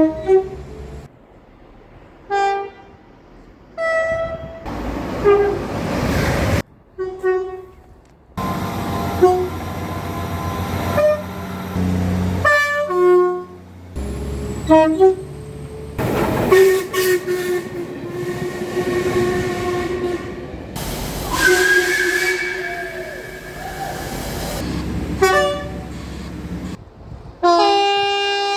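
A string of train horn blasts from different trains, cut together one after another: short toots and longer held notes at several pitches, over the rumble of trains running past.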